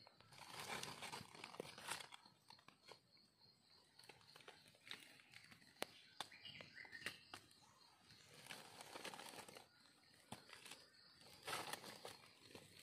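Faint rustling and crackling of dry fallen leaves as wild mushrooms are picked by hand from the forest floor, with scattered small clicks and snaps.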